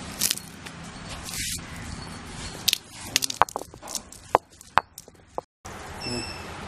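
Green cardamom pods being crushed with a stone roller on a flat grinding stone (ammikkal): scraping, then a run of sharp stone-on-stone knocks. In the last second a steady hiss of oil frying follows.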